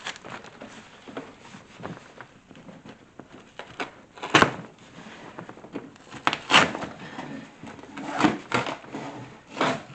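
Cardboard sides of a large shipping box being cut and torn down, with quiet rustling and several sudden loud rips and thumps of cardboard, about four, six and a half, eight and nearly ten seconds in.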